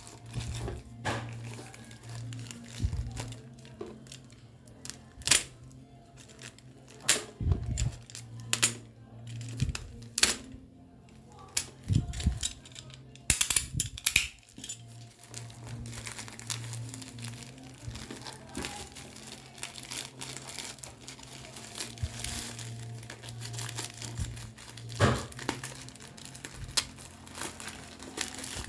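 Black plastic mailer bag being torn open and handled by hand, crinkling and tearing in irregular sharp crackles, with louder bursts of tearing in the middle.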